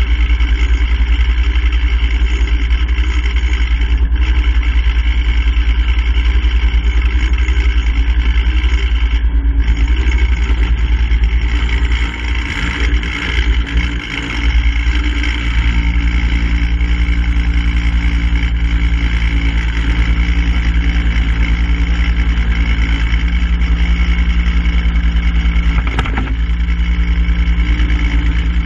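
A vehicle engine running steadily with a heavy low rumble. About twelve seconds in the level briefly dips and wavers, and then a steadier, lower hum with a clear pitch carries on.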